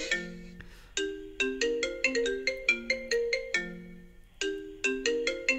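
Xylophone playing a short melody of struck notes, played back from a clip of a cat playing a xylophone. The notes come in quick phrases broken by brief pauses.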